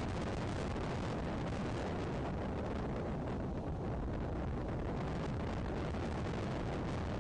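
Steady low rumbling noise of wind buffeting an outdoor nest-cam microphone, with no bird calls standing out.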